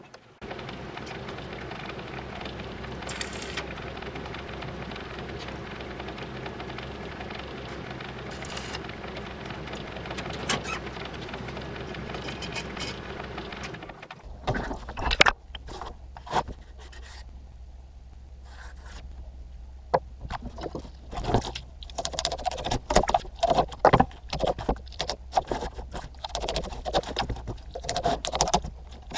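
A steady scraping noise for about the first half, then it stops and gives way to irregular short scrapes and clicks of a knife cutting a cardboard template and the cardboard being handled.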